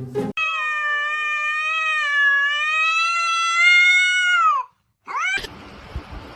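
A cat's long drawn-out yowl of about four seconds, holding its pitch and then dropping at the end, followed a moment later by a short rising meow.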